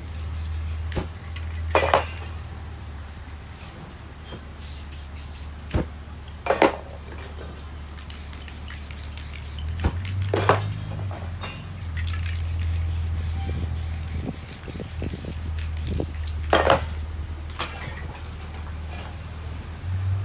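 Aerosol spray paint cans hissing in short sprays, several of them louder bursts, over a steady low hum.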